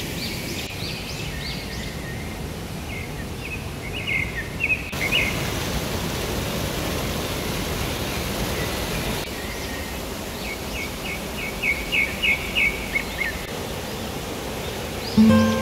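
Steady rush of flowing water with a songbird calling over it: a run of short, high chirps about four seconds in and another, faster run about eleven seconds in. Acoustic guitar music starts right at the end.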